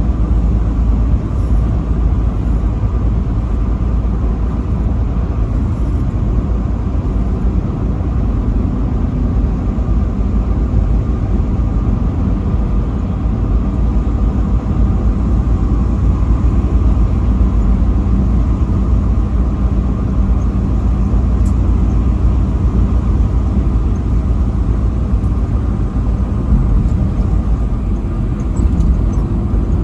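Semi-truck driving at highway speed: a steady, loud rumble of engine and road noise.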